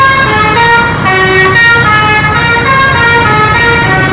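Multi-tone musical bus horn (telolet) playing a quick melody, a new note about every third of a second, over a low rumble of engines and traffic.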